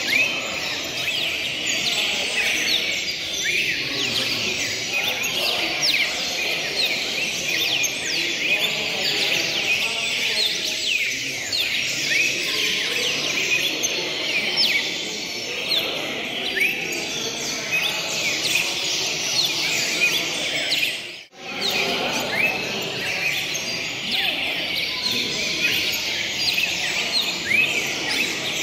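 Many caged songbirds singing at once: a dense, unbroken chorus of quick high chirps and down-slurred notes over a low background murmur. The sound drops out for a split second about 21 seconds in.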